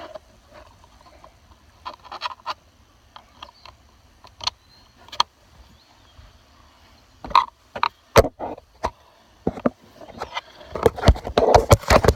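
Scattered sharp clicks and taps of a hand tool and screws being handled while refitting the steering wheel's airbag screws, sparse at first and turning into a dense, louder run of clicking near the end.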